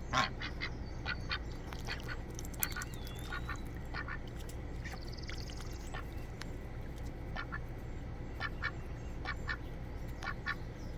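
Domestic ducks quacking, many short calls in irregular runs.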